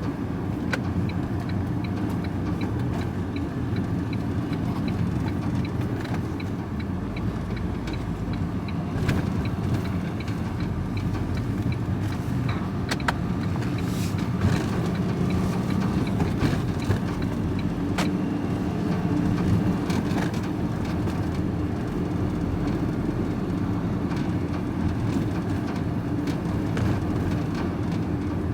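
Van engine and road noise heard from inside the cab while driving: a steady low drone with tyre hum, a faint regular ticking during the first twelve seconds or so, and a few short knocks further in.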